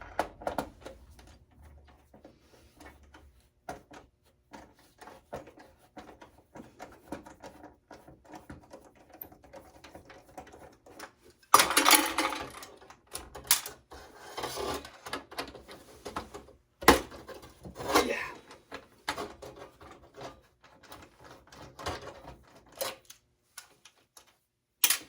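Clicks, knocks and clatter of parts being handled and pulled off a desktop computer's motherboard during disassembly for scrap, with a louder burst of rattling about twelve seconds in and a few sharp snaps later.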